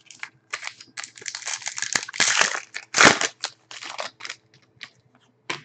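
Foil wrapper of a Panini Rookie Anthology hockey card pack being torn open and crumpled: a run of crackling rustles, loudest from about one to three seconds in, then a few lighter crinkles as the cards are handled.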